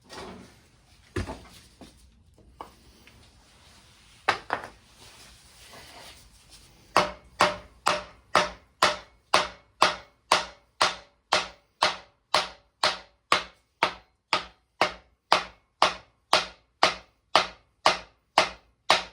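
Hammer blows on a block of wood set against a stuck piston of a seized Kubota V2203 diesel engine, beating it to free the piston. A few scattered knocks come first, then a steady run of hard strikes at about two a second.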